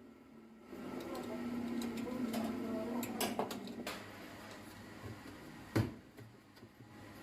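Whirlpool top-load washer being set going: scattered clicks and light knocks of its lid and controls, with a faint steady hum for the first few seconds.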